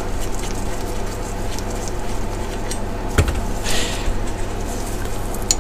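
Metal handling clinks from a brake pipe flaring tool as its forming screw is backed off, with a sharp knock a little past halfway and a short rustle just after, over a steady low hum.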